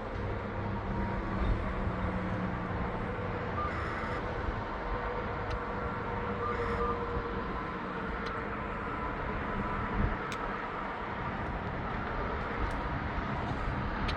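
Steady outdoor background noise of vehicle traffic, with a few faint short high clicks.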